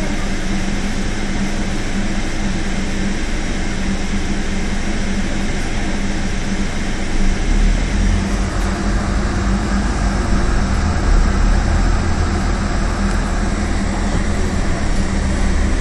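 A Scania OmniCity double-decker bus running, heard from inside: a steady diesel engine drone with road and tyre noise. A deeper low rumble comes in about halfway through and stays.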